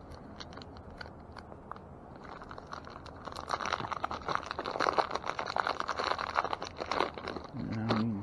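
Small metal tools and parts being handled and rummaged through: a busy run of clicking, rattling and crunching, loudest in the middle. A brief low hum comes just before the end.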